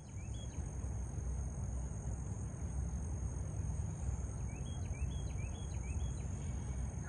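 Outdoor pond-side ambience: insects hold a steady high drone over a low rumble. A bird gives a couple of short rising chirps at the start, then a run of about five more around four and a half seconds in.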